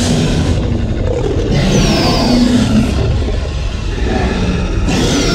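Dinosaur roar effect for the animatronic T. rex, played through the exhibit's loudspeakers: a long roar with a deep rumble under it, and a second one starting about five seconds in.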